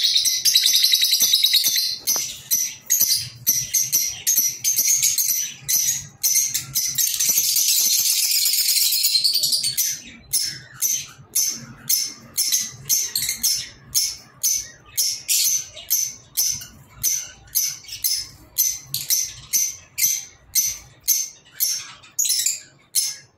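Lovebirds chattering in a dense, high-pitched stream of chirps. About ten seconds in, this gives way to a steady run of short, sharp chirps, about two a second.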